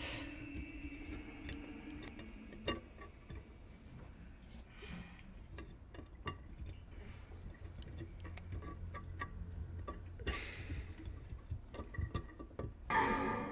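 Faint, irregular small clicks and knocks from a hand rummaging down in a kitchen sink drain among carrot slices, over a low steady hum. There is a brief hiss about ten seconds in and a louder burst near the end.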